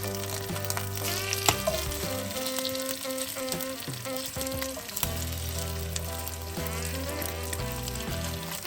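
Food frying in olive oil in a pan, sizzling and crackling, with one sharper pop about a second and a half in. Background music with held notes plays underneath.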